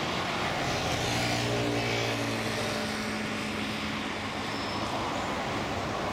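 SBB Re 460 electric locomotive running light past on the tracks below. A low hum from its electric drive is strongest in the first half, over a steady rumble of wheels on rail.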